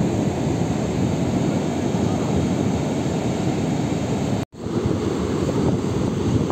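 Steady noise of wind buffeting the microphone over ocean surf breaking on the shore. The sound cuts out for a moment about four and a half seconds in, then the same noise resumes.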